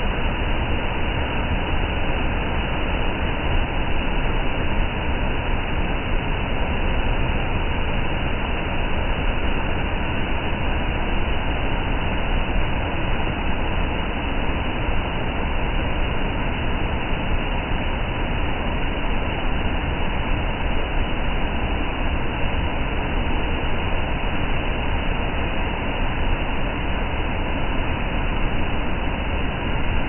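A river pouring over a wide rock-ledge waterfall and churning in the pool below: a loud, steady rush of water that never lets up.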